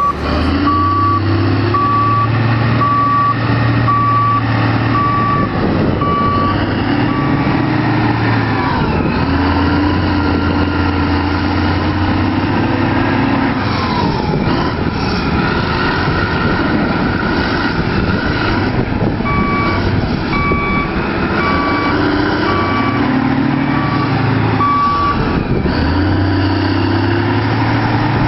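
Heavy diesel earthmoving machinery running under load, the engine note rising and falling as it works. A reversing alarm beeps about once a second for the first eight seconds or so, and again in a second spell past the middle.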